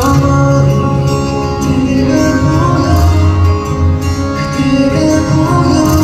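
A song with guitar and bass playing steadily.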